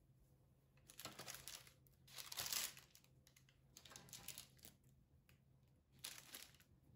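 Baking parchment rustling and crinkling in several short bursts as a baked pastry is lifted off its paper-lined tray and slid onto another, over a faint steady low hum.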